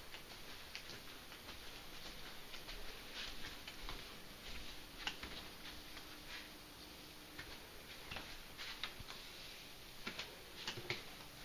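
Faint, irregular light clicks and taps in a quiet room, with a faint steady hum for a few seconds in the middle.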